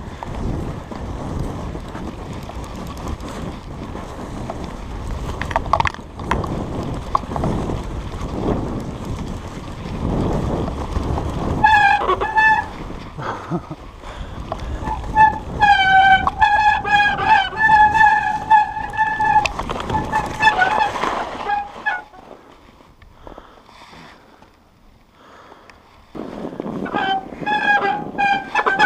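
Mountain bike riding down a snowy trail: a rough rumble of tyres and wind on the camera. From about twelve seconds in, the disc brakes squeal in long, steady, horn-like tones, on and off. The squeal pauses in a quieter stretch and returns near the end.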